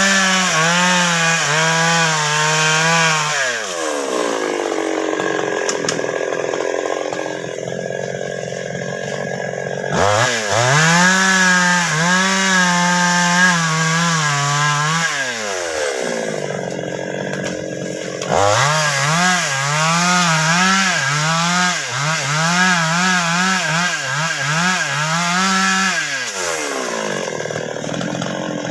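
Two-stroke chainsaw cutting baros wood: it revs to full throttle and holds there through a cut three times, dropping back toward idle between cuts. The pitch wavers up and down through the last cut.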